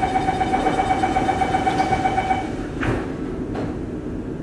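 Metro train door-closing warning: a rapid, steady-pitched beeping for about two and a half seconds, then the sliding doors shut with a thump about three seconds in and a softer knock just after. A steady low hum from the stopped train runs underneath.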